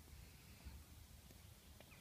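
Near silence: faint outdoor ambience with an uneven low rumble, the kind wind makes on a phone microphone.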